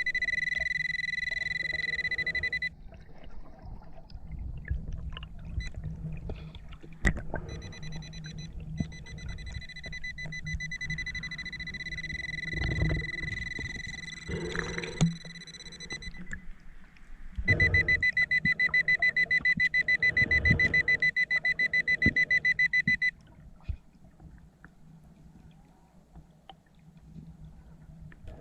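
Underwater metal detector giving a steady high-pitched tone in three stretches: the first lasts a couple of seconds, the second about eight seconds, and the last about five seconds, loudest and pulsing. The tone signals metal under the search coil. Low water noise and scattered knocks run underneath.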